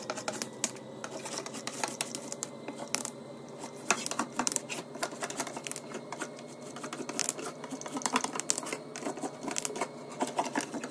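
Irregular light clicks and crackles, several a second, from a hand pressing down plastic wrap over foil on a tray while a hot glue gun is worked at the rim. A faint steady hum lies beneath.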